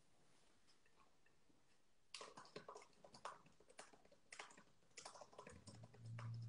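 Laptop keyboard being typed on: faint, irregular key clicks starting about two seconds in. A low steady hum comes in near the end.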